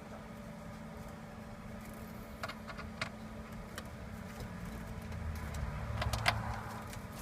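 Sparse clicks and light knocks of a hand tool working at car interior console trim and its Torx bolts, over a steady low hum, with a low rumble swelling a little past halfway.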